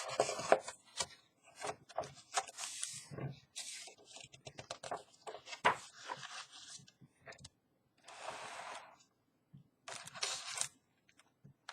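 Paper rustling and scraping with scattered clicks: the pages of a picture book being handled and turned. There is a longer sliding scrape about eight seconds in.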